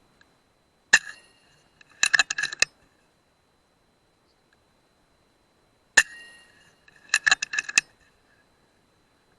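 Two shots from an FX Dreamline .177 PCP air rifle, each a sharp crack with a brief metallic ring. About a second after each shot comes a quick run of clicks as the side lever is cycled to load the next pellet.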